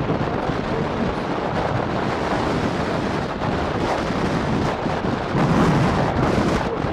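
Wind buffeting the microphone: a loud, steady rushing, gusting harder for about a second near the end.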